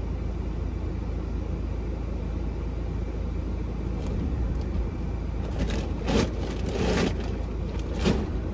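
A parked car idling, heard from inside the cabin as a steady low rumble. In the second half come a few short rustles and knocks from the open boot as a pram is loaded in.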